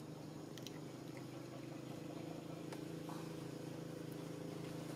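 A steady low mechanical hum, like a motor or engine running, with a few faint clicks.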